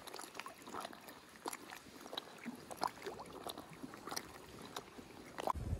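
Faint, irregular small splashes and lapping of lake water against a float tube. Wind rumble on the microphone comes in near the end.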